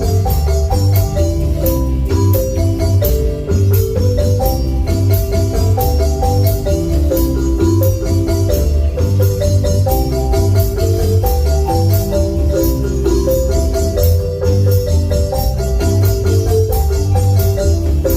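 Marimba ensemble playing a lively tune: quick runs of struck wooden-bar notes over a deep bass line, with steady high percussion ticks keeping the beat.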